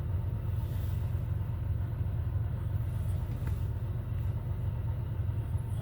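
The supercharged 3800 Series II V6 (L67) of a 2004 Chevrolet Impala SS idling steadily, running smoothly.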